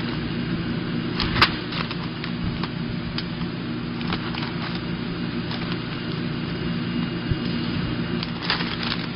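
Coffee-bean packaging machine running with a steady hum, while filled coffee bags rustle and tap as they are picked up and handled, with scattered sharp crackles, the loudest about a second and a half in and another cluster near the end.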